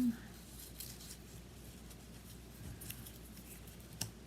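Paper scraps being handled and cut with scissors: faint scattered snips and rustles, with one sharper click near the end.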